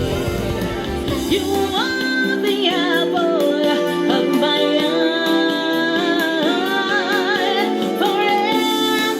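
A woman singing long, held notes with vibrato over a pop-soul backing track. The low bass drops out about two seconds in.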